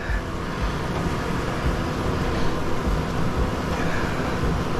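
Steady background rumble and hiss with a faint low hum, with no distinct knocks or tool strikes.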